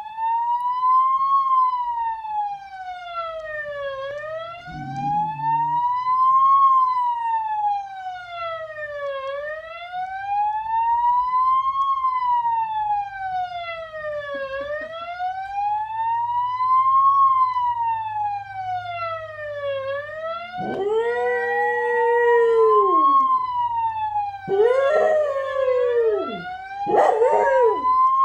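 Ambulance siren wailing, its pitch rising and falling slowly about once every five seconds. From about twenty seconds in, a dog howls along with it in several drawn-out howls that bend and fall in pitch.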